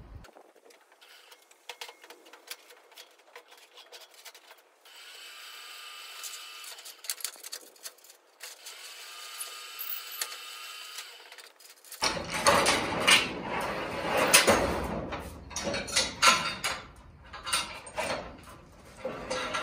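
Chain and metal rigging clanking and rattling against a steel flatbed trailer, loud and irregular from about halfway in. Before that there is only a faint, steady whine.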